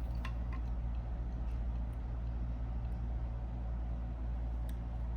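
A steady low rumble and hum of background noise, with a few faint, light clicks of small parts being handled, about a quarter second in and again near the end.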